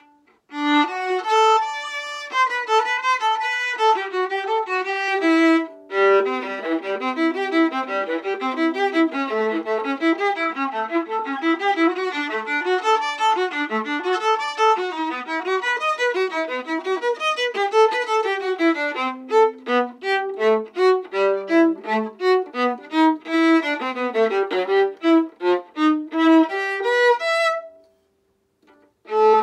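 Solo violin played with a bow: a quick melodic passage with a brief break about six seconds in, later a run of short, separated bow strokes. The playing stops for about a second near the end, then starts again.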